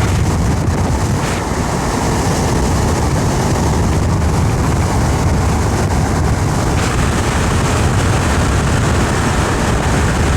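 Steady cabin noise of a car on the move: low road and engine rumble with wind rushing over the microphone.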